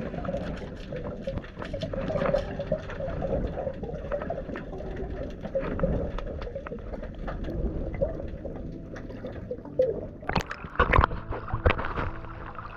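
Muffled underwater rushing and rumbling of water around a submerged camera, with many small clicks and knocks. About ten seconds in come several louder splashes as the camera breaks the sea surface.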